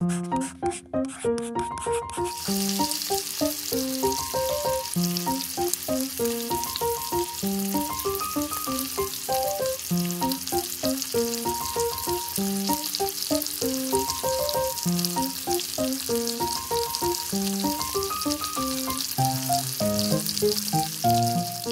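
Oil sizzling steadily as coated pieces of fish deep-fry in a miniature wok, starting about two and a half seconds in after a few light clicks. A gentle melody of background music plays throughout.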